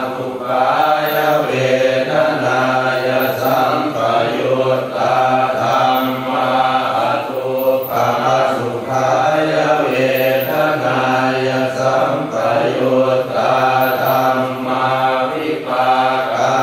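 Thai Buddhist chanting (suat mon): voices reciting on a low, steady monotone that moves in small steps of pitch, unbroken throughout.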